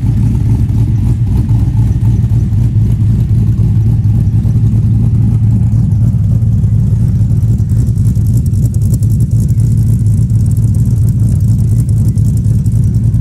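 LS V8 engine idling steadily through Speed Engineering long-tube headers and MagnaFlow straight-through mufflers: a loud, even exhaust rumble with no revving.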